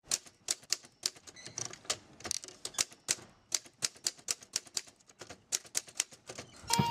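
Sharp clacking strokes in irregular runs, a few a second, with short gaps. Heavy metal music comes in at the very end.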